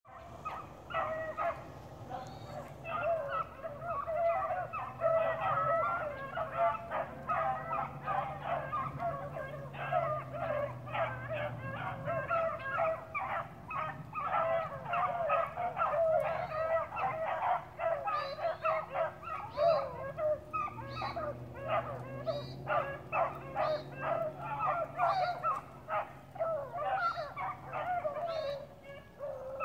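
A pack of hounds baying and yelping without pause, many dogs' voices overlapping.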